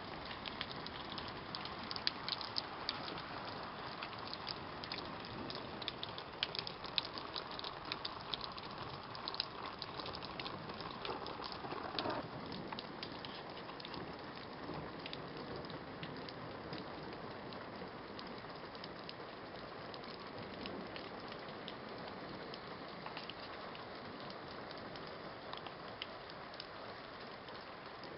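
Steady rain with many sharp ticks of drops striking a hard surface, thick in the first twelve seconds or so and thinning out after.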